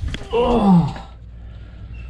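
A man groaning with effort while squeezing through a cramped crawl space: one short falling groan, just after a sharp knock.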